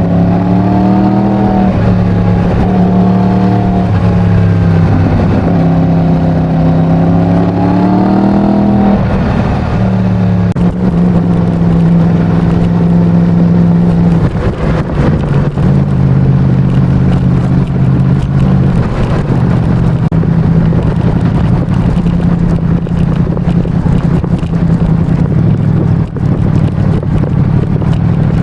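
Yamaha MT-10's crossplane inline-four engine with its stock exhaust, under way. The revs climb twice in the first nine seconds, then the engine settles into steady running with a few brief dips in pitch and level.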